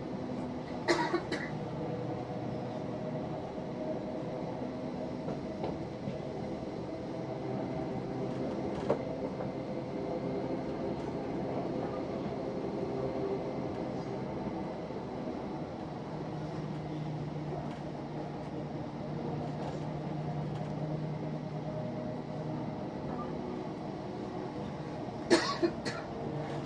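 Steady running noise of a ScotRail electric passenger train heard from inside the carriage: wheels on the rails with a humming drone that grows stronger for several seconds past the middle. A few sharp short sounds cut in, one about a second in and two near the end.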